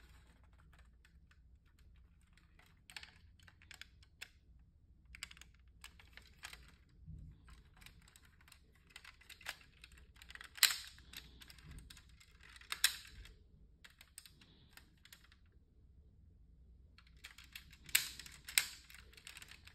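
Handling noise of a diecast model car turned over in the hands: faint, irregular clicks and taps of fingers and parts on the model's body, with a few sharper clicks and quiet gaps between.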